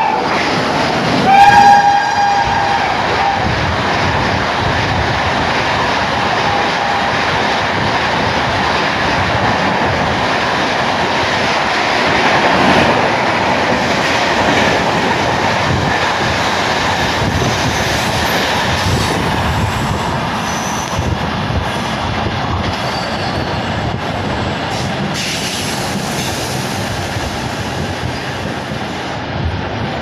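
Shrill horn of WAP-7 electric locomotive 30607, one blast of about a second and a half, starting about a second in; this is the loudest sound. Then the LHB coaches of the express pass close at speed with a steady rush and clatter of wheels on rail joints, easing slightly in the second half. No generator-car drone, since the coaches run on head-on-generation power.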